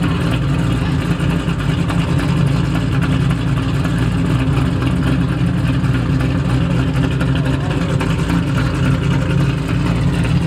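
1955 Chevrolet Bel Air's twin-turbocharged 540 cubic-inch big-block V8 idling steadily.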